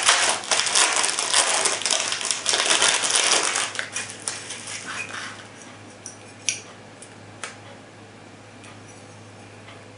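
Clear plastic bag crinkling as it is worked open and pulled off a pair of aluminum pistol grips, fading out about four seconds in. After that, a couple of light clicks as the metal grip panels are handled.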